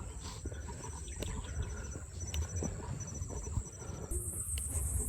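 Forest ambience: a steady high-pitched insect drone that gets much louder about four seconds in, over a constant low rumble and scattered small clicks and rustles.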